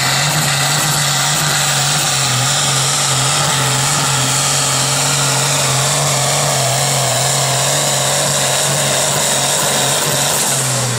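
Pulling tractor's diesel engine running flat out at steady high revs under full load as it drags a weight-transfer sled, pouring black smoke. Its note drops right at the end as the pull stops.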